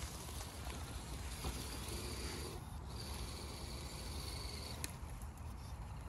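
Surpass Wild 6x6 RC crawler's electric motor and gearbox whining faintly as it creeps over a log, the high whine starting and stopping twice with the throttle, over the rustle of dry leaves under its tyres.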